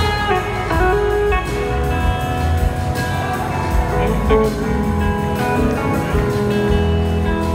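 Blues-rock band playing live: electric guitars over drums and a full band, recorded from among the audience.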